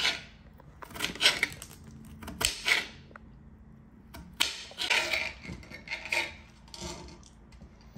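Chef's knife chopping onion and then cherry tomatoes on a glass cutting board: sharp knocks of the blade striking the board, coming irregularly in quick runs of a few strokes.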